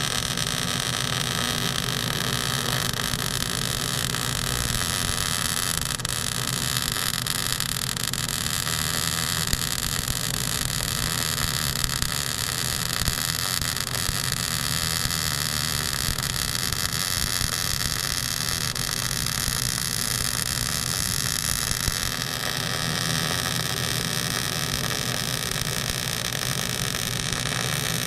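Electric arc welding on a steel trailer jack beam: the arc gives a steady, unbroken hiss.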